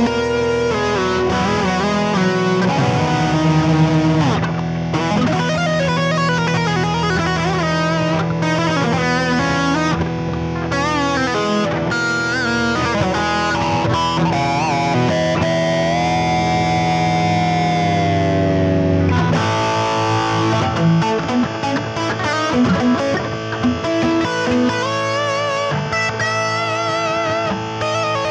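Distorted Ibanez electric guitar played through an Electro-Harmonix Freeze sound-retainer pedal: a frozen chord drones on steadily while lead notes with vibrato and bends are played over it. Near two-thirds of the way through the held drone stops and the lead playing carries on over a changed backing.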